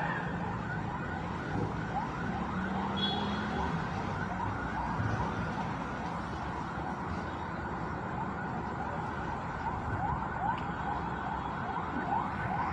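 Faulty mosque horn loudspeaker giving out a steady hissing noise with a warbling, siren-like flutter of many quick rising chirps. This is the unwanted speaker noise that is being repaired.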